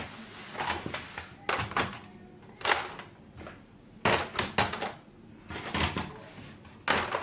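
Plastic toys being handled: irregular sharp clicks and knocks, some in quick clusters of two or three, with short quiet gaps between.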